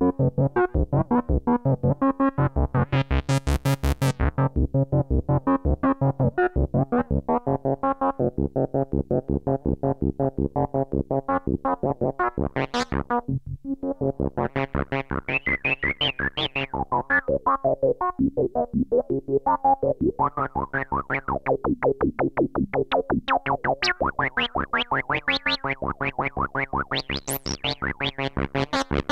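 Behringer Odyssey analog synthesizer prototype running a step-sequencer pattern: a rapid, evenly spaced run of short notes on a steady low pitch. The filter sliders are being moved, so the tone brightens and sweeps upward at times, most of all in the second half.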